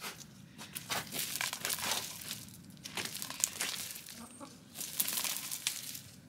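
Hens scratching and pecking through dry leaf litter and soil: irregular rustling and crackling.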